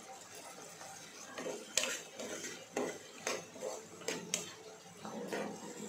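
A steel spoon stirring peas and chopped vegetables in a cooking pan, clinking and scraping against the pan in a string of knocks that starts a little over a second in.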